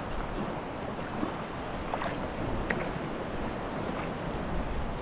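Small choppy waves lapping against a kayak's hull as a steady wash of water noise, with a few light splashes and some wind.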